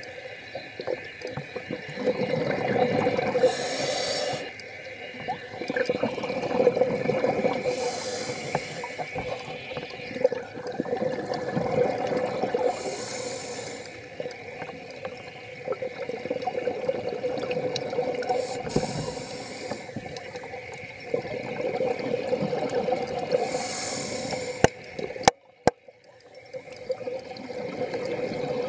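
Scuba diver breathing through a regulator underwater: slow breaths with a rush of exhaled bubbles about every five seconds. A pair of sharp clicks and a short drop-out come near the end.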